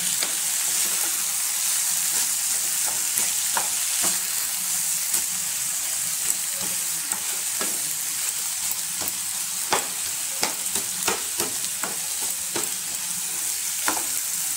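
Beetroot, carrot and mashed potato mixture sizzling in a steel kadai as it is stirred, the spatula scraping and tapping against the pan in irregular clicks over a steady hiss.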